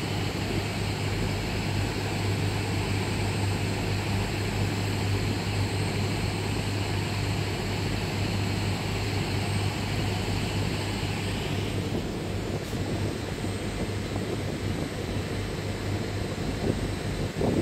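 Ferry engines running with a steady low drone, heard from the open deck, with a rushing hiss of wake water and wind over it. The hiss drops away about twelve seconds in while the engine drone carries on.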